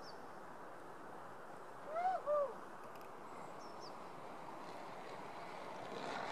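Two short hoot-like calls in quick succession about two seconds in, each rising then falling in pitch, the second slightly lower, over a steady low outdoor hiss.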